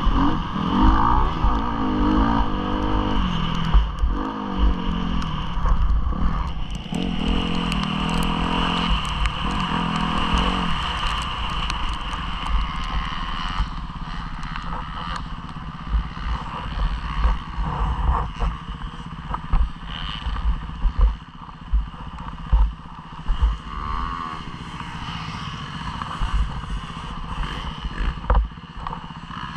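Motocross bike engine revving hard and falling back through the gears during the first ten seconds or so, then running lower and steadier, with frequent low thumps and clatter as the bike goes over the rough track.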